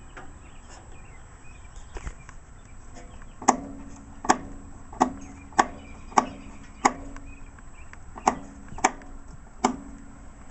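Sharp knocks on the metal front end of a Sears ST/16 garden tractor, by its headlights. Starting about three and a half seconds in, there are nine knocks, each followed by a short, low ringing.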